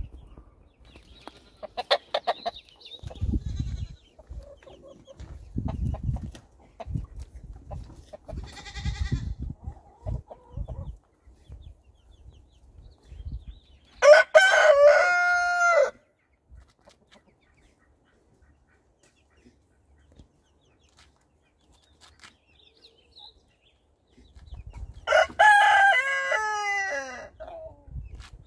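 A rooster crows twice, each a long stepped cock-a-doodle-doo, about fourteen seconds in and again near the end. Before the first crow, chickens cluck among scattered low bumps.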